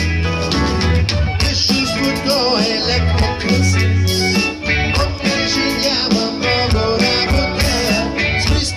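Rock band playing live through a loud concert PA, singing and guitar over a steady beat, heard from within the crowd.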